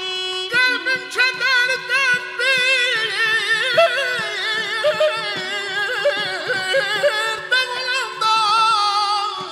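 Azerbaijani ashiq music: a male voice sings with wide, wavering vibrato, entering about half a second in, accompanied by a saz and a balaban over a steady held drone.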